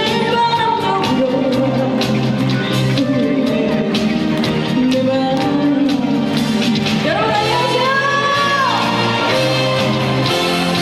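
Trot song performed live: a woman singing over instrumental accompaniment with a steady bass line. About seven seconds in her voice slides up into a long note that bends back down.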